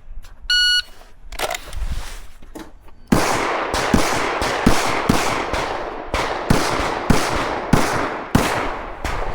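A shot timer's start beep, then about three seconds later a string of roughly a dozen pistol shots fired at about two a second during a timed competition stage.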